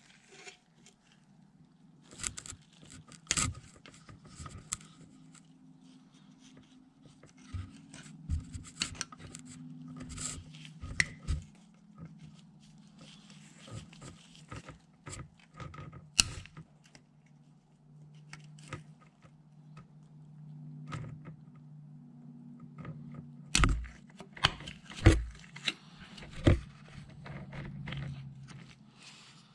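Hand sanding of a disassembled hydraulic cab latch part with sandpaper: irregular scraping and rubbing strokes with small clicks, and a few sharper knocks of the part being handled near the end.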